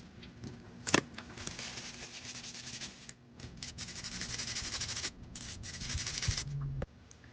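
A small brush scrubbing an iPhone's speaker grille, a dry scratchy rubbing in quick strokes that cuts off abruptly near the end. A sharp tap sounds about a second in.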